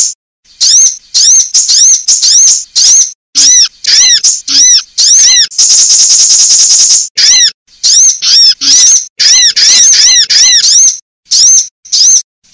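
Sunbird calls: series of short, sharp, high-pitched chirps, several a second with brief gaps, and a dense high trill lasting over a second about five seconds in.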